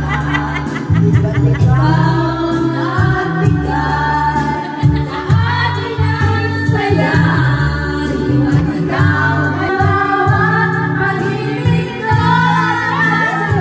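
Karaoke: a woman singing into a microphone over a backing track with a steady bass line, with other voices singing along.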